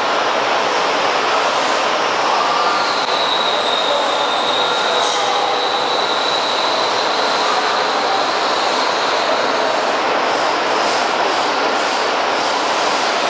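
Automatic powder coating line running: a loud, steady rushing noise from the booth's extraction fans and the overhead conveyor, with a high whine that wavers slightly in pitch.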